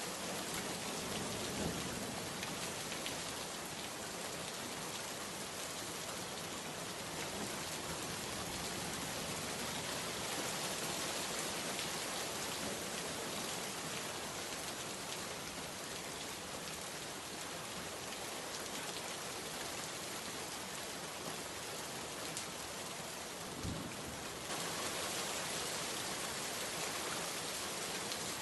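Steady heavy rain falling, a dense hiss with scattered drop ticks. A brief low knock sounds near the end, and the rain gets slightly louder just after it.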